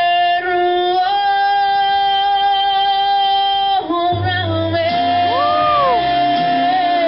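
Live singing over recorded backing music: a voice holds one long high note, breaks off briefly just before four seconds in, then holds it again as a bass line comes in.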